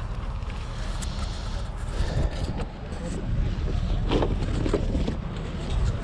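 Wind buffeting the microphone in a low, uneven rumble, with a few brief faint background sounds.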